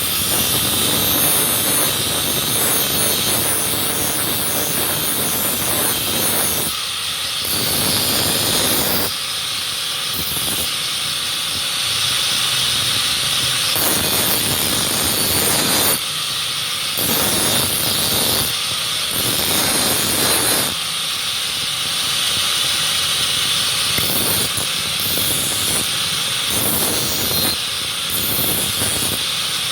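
Knife being ground on a spinning sharpening wheel: a steady, high grinding hiss whose lower, fuller layer cuts in and out every second or two.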